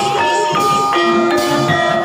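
Gamelan accompaniment for an ebeg trance dance: mallet-struck keyed instruments ringing out a melody over lower sustained tones.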